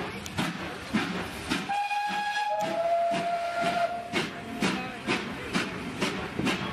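Steam train pulling out of the station: the carriages roll past with a regular beat of about two a second. For about two seconds in the middle a steady whistle-like tone sounds, dropping a step in pitch partway through.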